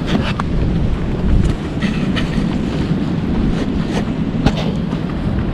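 Strong wind buffeting the microphone, a steady loud rumble, with a few brief knocks or clicks, one about half a second in and a sharper one near the end.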